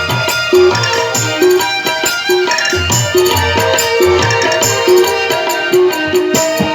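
Instrumental music interlude: tabla drumming in a steady rhythm under a melodic backing, with no singing.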